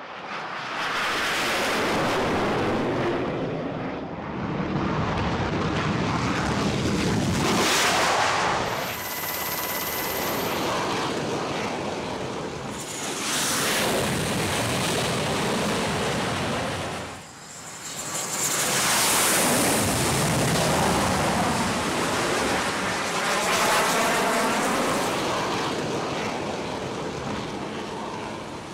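Jet engine noise from an X-47B unmanned flying-wing aircraft flying over and operating on an aircraft carrier deck, mixed with strong wind on the microphone. The noise swells and fades in several stretches, dropping out briefly twice.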